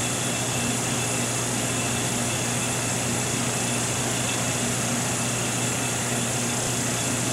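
Steady machine noise, a low hum under an even hiss with no change, from the running ATV SRO 702/704 reflow oven while its chamber is purged with gas.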